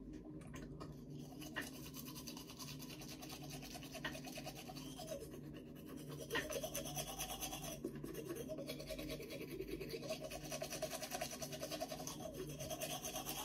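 Manual toothbrush scrubbing teeth: quick, steady back-and-forth brushing strokes that get busier about six seconds in.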